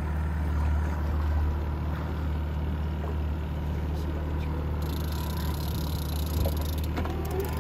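Outboard motor running steadily with a constant low hum.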